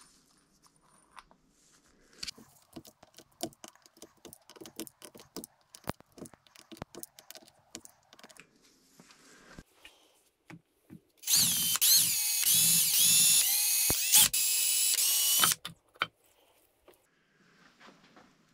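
Irregular clicks and light metal knocks from handling the hub and tools, then a cordless drill/driver runs loud for about four seconds in quick trigger pulses, its whine rising and dipping with each pull before cutting off.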